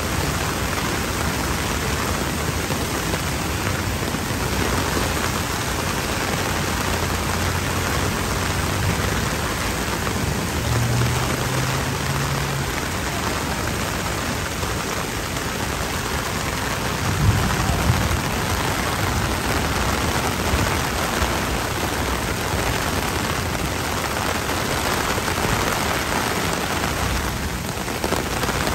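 Torrential rain pouring steadily onto a flooded street and pavement, a dense, unbroken hiss of heavy rain. A couple of short low thumps stand out about two-thirds of the way through.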